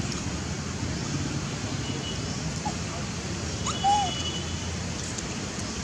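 A young macaque gives a few short, high squeaks, the loudest and longest one about four seconds in, over a steady outdoor noise.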